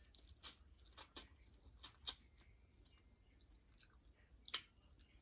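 A person chewing food close to the microphone, faint, with a few short sharp crunching or smacking sounds.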